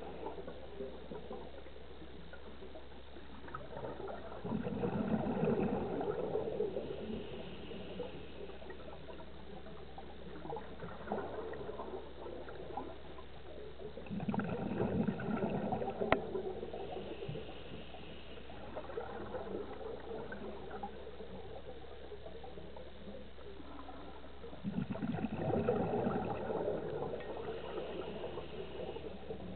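Scuba diver's regulator breathing heard underwater: three bursts of exhaled bubbles gurgle out about ten seconds apart, with a faint hiss of inhalation between them. A single sharp click comes about halfway through.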